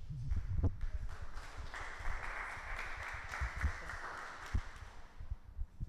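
A small audience applauding for a few seconds, fading near the end, with a few low thumps as a handheld microphone is passed along.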